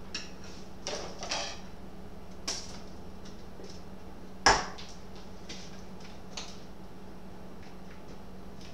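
Light scrapes and clicks of a spatula working cake batter out of a mixing bowl into a metal cake pan, with one sharp knock about four and a half seconds in, over a steady low hum.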